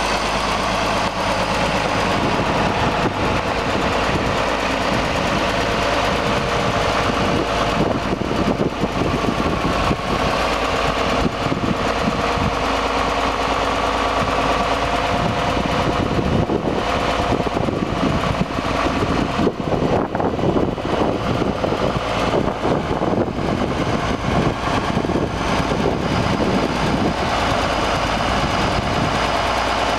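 The diesel engine of a 1974 International 1066 tractor running steadily.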